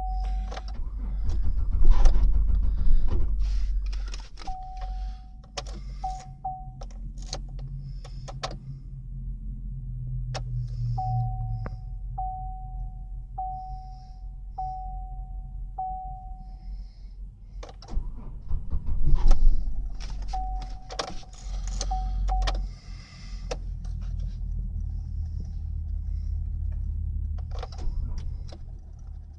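Dashboard warning chime of a 2007 Chevy Uplander beeping a single steady tone about once a second in several runs, over a low rumble from the van. Scattered clicks and clatter run through it, with louder bursts about two seconds in and again past halfway. The chime sounds on a van with a fault that puts it in reduced power mode and sometimes brings a low oil pressure warning.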